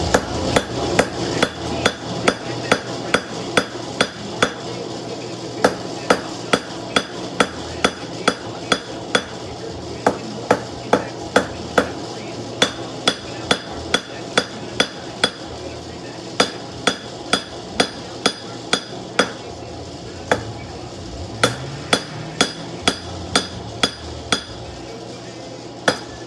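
Hand hammer striking hot steel on a post anvil: a steady run of sharp blows, about two to three a second, broken by short pauses, many of them with a brief metallic ring. A steady low hum runs underneath.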